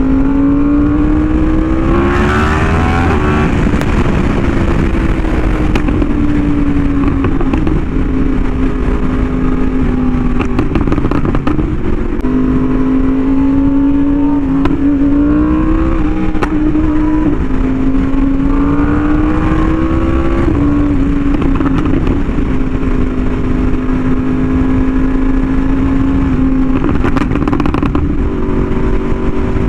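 Yamaha R1M's crossplane inline-four through an SC Project exhaust, pulling with rising pitch and dropping back at gear changes several times, over steady wind rumble on the microphone.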